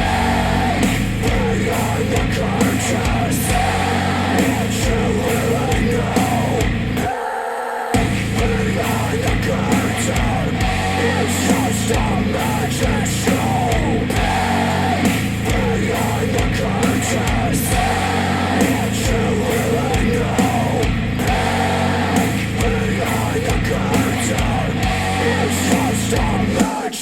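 Heavy rock music played back over KEF Q350 bookshelf speakers driven by a NAD C 338 amplifier; the low end drops out briefly about seven seconds in.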